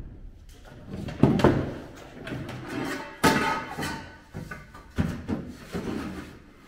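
Knocks and clanks of a zinc-coated steel angle brace being handled and set against the bare steel body shell, about every two seconds. The loudest clank, near the middle, rings on briefly.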